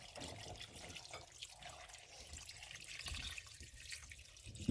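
Water being poured from a jug into a pot of chopped beef and vegetables, a faint steady trickle and splash, filling the pot to cover the stew ingredients.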